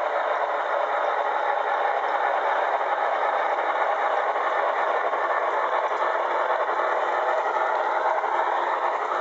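Model N&W 1218, a 2-6-6-4 steam locomotive, running along layout track: a steady whirring rattle of its electric motor and wheels on the rails.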